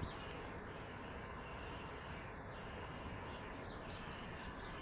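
Small birds chirping faintly: many short, quick falling calls over a steady outdoor hiss.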